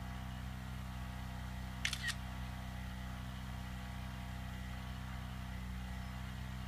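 Steady low mechanical hum, with a brief double click about two seconds in.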